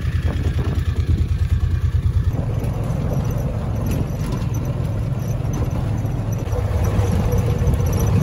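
A motor vehicle's engine running steadily at low speed as it drives along a dirt road, with a continuous low rumble.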